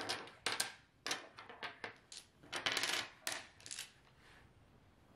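Dominoes clicking against one another and tapping on a wooden table as a hand of double-six tiles is turned face up and pushed into a row. The clicks come in quick runs and die away about four seconds in.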